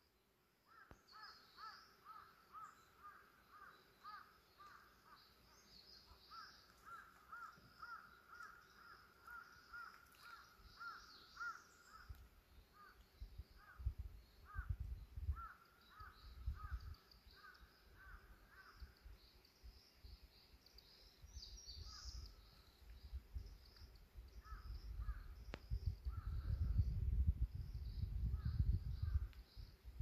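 Woodland birds calling. One repeats a quick series of short calls, steady for the first dozen seconds and then in broken runs, while smaller birds chirp higher up. Wind rumbles on the microphone from about halfway, strongest near the end.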